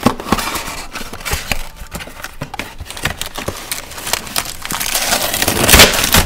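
A small cardboard mailing box being opened by hand: flaps rubbing and popping free, with crinkling of the brown packing paper inside. The loudest crinkling comes near the end.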